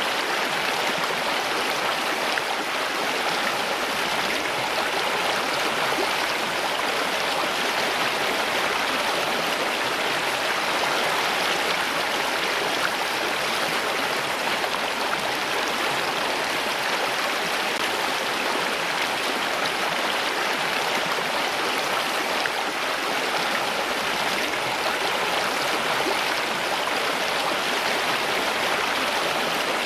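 Running water, a steady, unbroken rush like a flowing stream.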